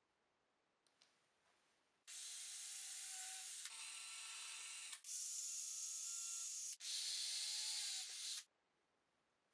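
Cordless drill with a thin twist bit drilling small holes into plywood: a steady motor whine with the bit cutting, in four back-to-back runs of about a second and a half each, starting about two seconds in and stopping abruptly near the end.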